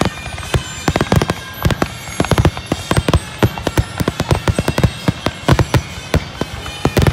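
Aerial fireworks shells going off in a rapid barrage, several sharp bangs a second, overlapping one another.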